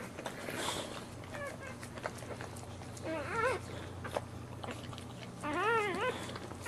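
A dog whimpering: three short, high-pitched cries that waver up and down, the last one longest and loudest near the end, over a steady low hum.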